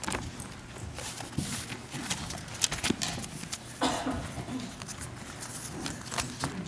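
Scattered light taps, clicks and paper rustles from pages and a book handled at a lectern microphone, a few taps louder than the rest.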